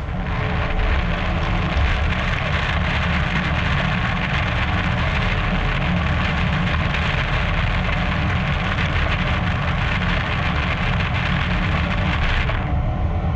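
CNC lathe machining the bore of a Haynes 188 nickel-cobalt superalloy part: steady hissing, splattering coolant spray with fine crackle over the machine's low rumble. The hiss thins out near the end.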